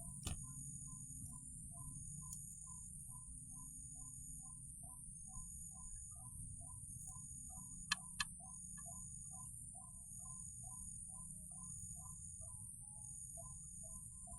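White-breasted waterhen call, a faint two-note 'kor-ak' repeated steadily about twice a second. Two sharp clicks come in quick succession about halfway through, over a steady high hiss.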